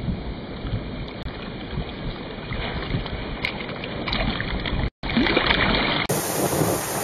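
Small breaking surf and water sloshing around a camera held at water level, with wind on the microphone. The sound drops out for a moment about five seconds in, then comes back louder and brighter.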